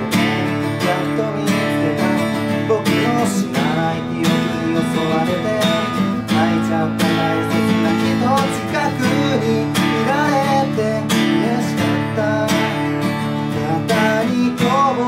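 Acoustic guitar strummed in steady chords, with a man's voice singing over it in places.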